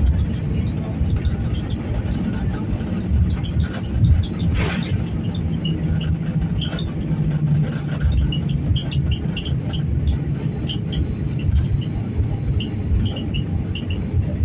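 Steady low rumble of a jet airliner heard from inside the cabin while it rolls on the ground, with small cabin rattles and a brief whoosh about four and a half seconds in.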